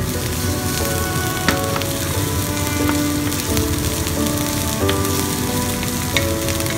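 Shrimp and diced onion sizzling steadily in hot oil in a frying pan as they are stirred with a wooden spatula, with a few sharp clicks of the spatula against the pan. A background music melody plays over the sizzle.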